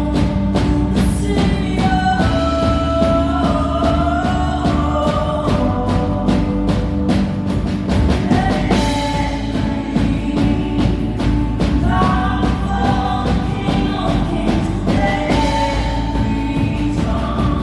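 Live worship band playing a rock-style worship song: a steady drum beat under sustained bass and keyboard notes, with a sung melody line bending over the top.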